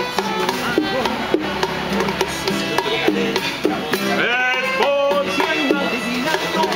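Music with percussion and pitched melody notes, including a sweep in pitch about two-thirds of the way through.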